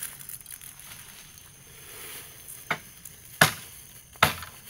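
Three sharp chopping strikes into wood, under a second apart, the second the loudest.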